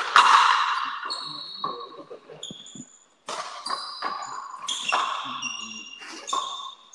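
Frontenis rally: the hard rubber ball cracking off rackets and the concrete fronton wall, a string of sharp strikes about one a second, each with a ringing ping that echoes in the court.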